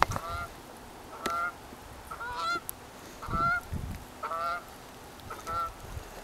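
Geese honking, a short honk about once a second.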